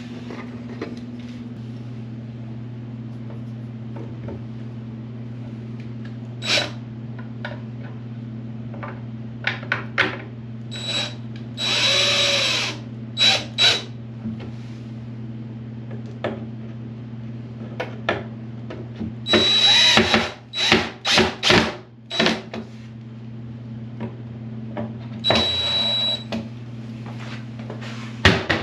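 DeWalt cordless drill/driver run in several short bursts, its motor whining, as it drives cabinet handle screws through the door, with clicks and knocks of handling between the runs. A steady low hum sits underneath.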